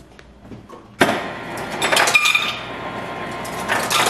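Refrigerator door ice dispenser running and dropping ice into a cup, a dense clatter that starts suddenly about a second in and stops about three seconds later.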